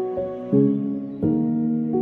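Slow, gentle background music with piano-like notes, a quiet melody over held chords, with new chords struck about half a second in and again a little past one second.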